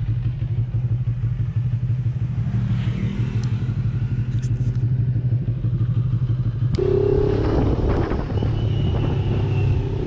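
Motorcycle engine running steadily under way, heard from the rider's own bike, with wind and road noise. About seven seconds in, the sound changes abruptly with a click, to a different engine note.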